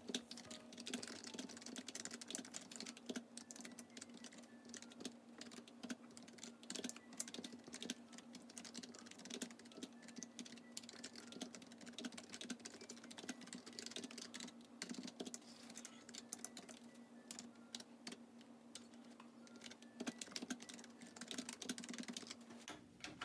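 Typing on a computer keyboard: a fast, irregular run of faint key clicks with short pauses, over a low steady hum.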